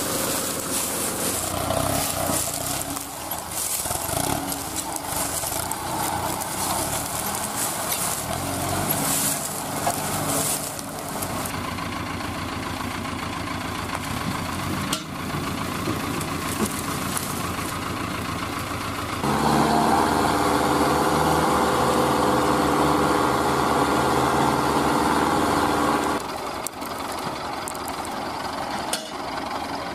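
Farm tractor's diesel engine running, growing louder and steadier for about six seconds past the middle.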